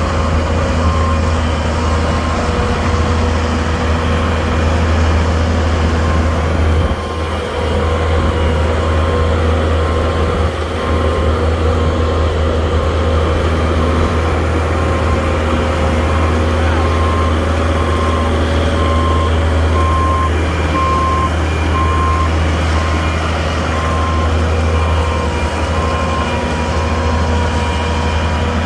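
Skid steer's diesel engine running steadily while its backup alarm beeps over and over as the machine reverses.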